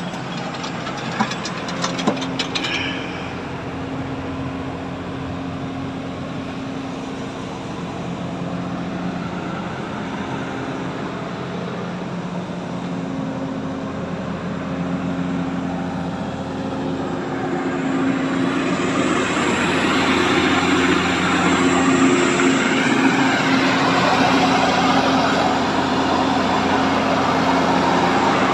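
Hyundai 210 excavator's diesel engine idling steadily, with a steady low hum. About two-thirds of the way in it grows louder and harsher.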